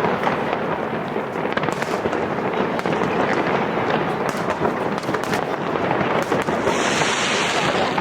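Fireworks display: a dense run of bangs and crackles over a continuous rumble, with a burst of hissing crackle near the end.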